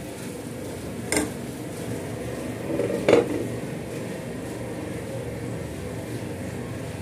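Two clanks of cookware about two seconds apart, the second and louder one as a glass lid is set on a nonstick pan, over a steady low background noise.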